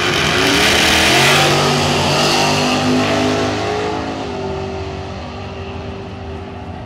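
Two drag cars, one of them a Ford Maverick drag car, launching off the start line at full throttle. The engines are loudest about a second in and rise in pitch, then fade as the cars pull away down the strip.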